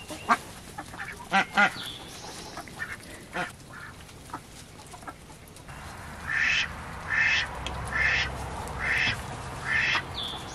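Domestic ducks calling. Short, soft sounds in the first half, then a run of five loud quacks, about one a second, in the second half.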